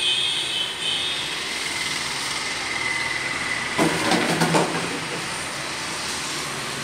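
Road traffic passing, a steady rushing noise with a brief louder rattling burst about four seconds in.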